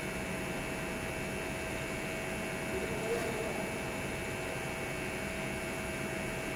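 Steady hiss and hum of TIG welding on thin-walled stainless sanitary pipe, with a short louder sound about three seconds in.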